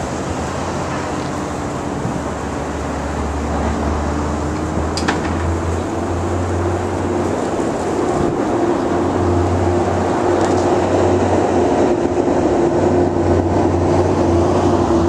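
A steady, low engine drone with a constant hum, growing a little louder over the second half.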